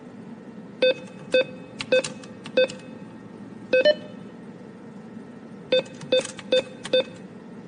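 Short, identical keypad-style beeps, one with each press on a pretend cardboard ATM's buttons. Five come over about three seconds, then a pause, then four more in quick succession.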